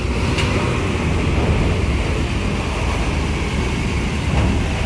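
Coach bus's diesel engine running, a steady low rumble.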